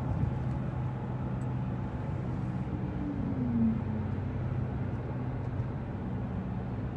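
Steady engine and road rumble inside a moving van's cabin, with a short low falling tone about three seconds in.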